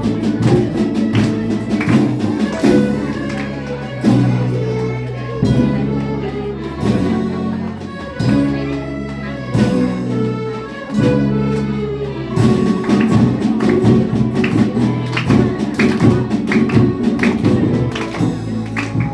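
A school orchestra playing a Latin American piece live: held notes in the lower instruments move in a steady pattern under percussion strikes, and the playing grows busier about twelve seconds in.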